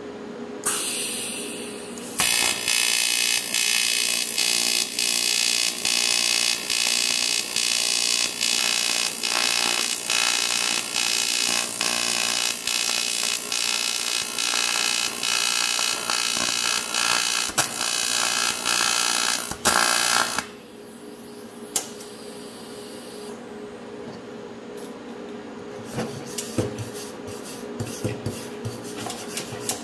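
TIG welding arc on aluminium: a loud, harsh, steady buzz with a regular pulse about twice a second. It starts about two seconds in after a brief hiss and cuts off about two-thirds of the way through. A quieter steady hum and a few light knocks follow.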